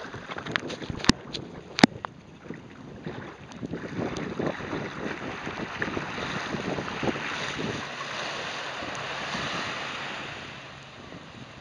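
Water sloshing and small waves washing as a sea kayak comes in toward the beach, with wind buffeting the microphone. A few sharp knocks come in the first two seconds. The wash grows fuller from about four seconds in and eases off near the end.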